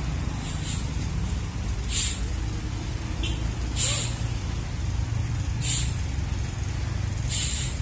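Diesel engine of a heavy Hino wingbox truck running with a low, steady drone as it crawls up a steep climb. Short, sharp hisses repeat about every two seconds over the engine.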